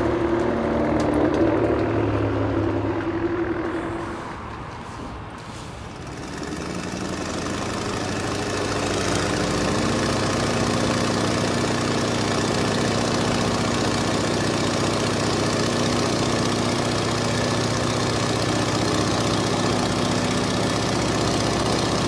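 Biplane's piston engine and propeller running steadily. The sound dips a few seconds in, then builds up and holds even.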